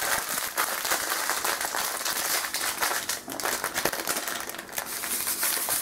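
Plastic packet of poppy seeds crinkling and rustling as it is handled and opened, a continuous crackle of small clicks.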